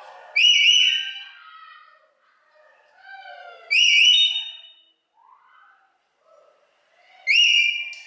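Rainbow lorikeet giving three loud whistles about three and a half seconds apart, each rising quickly then held for about a second. Quiet warbling chatter fills the gaps.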